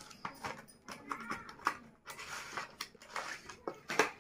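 Cardboard packaging and a plastic tray being handled and pulled apart: scraping and rustling with scattered clicks, and one sharper, louder click about four seconds in.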